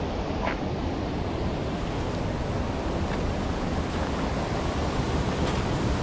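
Steady rushing of a swollen river, with wind buffeting the microphone. A few faint ticks of bare feet and hands on rock and grass come through it.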